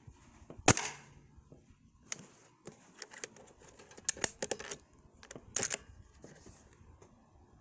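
Irregular clicks and knocks of something being handled. The loudest is one sharp click a little under a second in, followed by a cluster of smaller clicks between about two and six seconds in.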